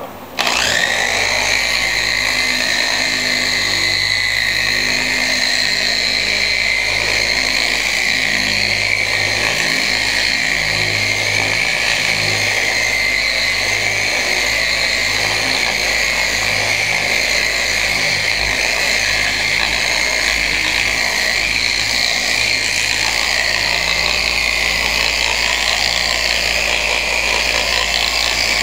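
Electric orbital polisher with a foam pad switching on about half a second in, then running steadily with a high whine while spreading carnauba wax on car paint.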